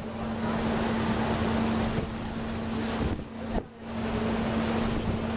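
A ship's engine droning steadily with one unchanging low tone, under wind buffeting the microphone and the rush of water along the hull. The wind noise drops away briefly a little past halfway.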